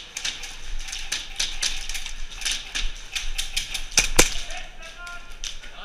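Airsoft guns firing in an indoor arena: a fast, irregular run of sharp pops and clicks, several a second, with one louder knock about four seconds in.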